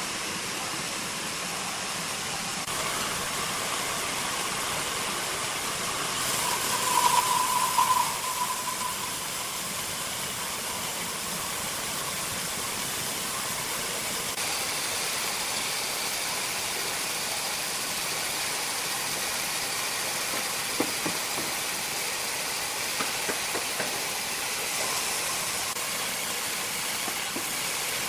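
Sawmill machinery running steadily with a constant mechanical noise; a few seconds in it gets louder for a couple of seconds with a ringing whine, and a few short knocks come in the second half.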